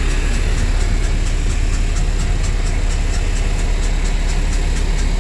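A large engine idling steadily: a deep, unbroken drone.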